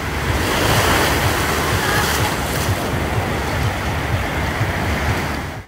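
Ocean surf breaking and washing over the shallows, a steady hiss, with wind buffeting the microphone as a low rumble.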